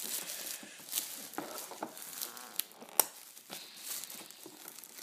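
Plastic bag and cardboard toy box being handled: crinkling and rustling, with scattered light clicks and one sharp snap about three seconds in.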